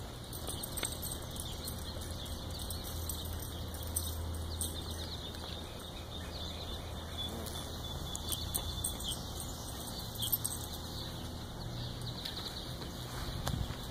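Japanese beetles flying in to a Bag-A-Bug trap: a low buzz of wings throughout, with many scattered light ticks as beetles strike the plastic vanes.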